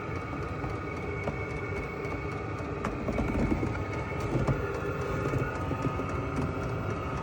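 Chinese diesel air heater running: a steady blower-fan whine over a rumbling burner, with a few faint ticks.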